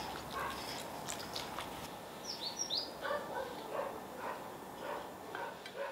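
A dog making short, repeated calls from about three seconds in, with quick high falling chirps just before. In the first second and a half, a few light clinks of a metal skimmer ladle against the cast-iron pot and plate.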